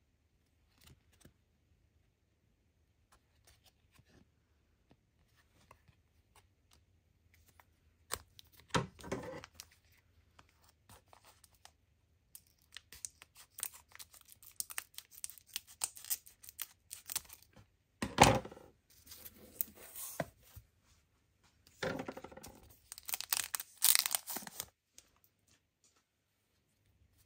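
Scissors cutting through the top of a plastic foil trading-card pack, the wrapper crinkling and tearing as it is opened. It comes in several rough bursts starting about eight seconds in, after faint clicks of cards being handled.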